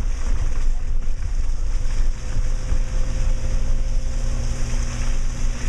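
Subaru Outback driving on a dirt mountain trail: a steady low rumble of engine and tyres, with a faint steady hum added about three seconds in.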